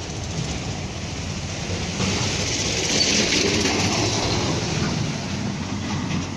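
Street traffic noise, an even rumble and hiss that swells about two seconds in as a vehicle goes by, then eases off near the end.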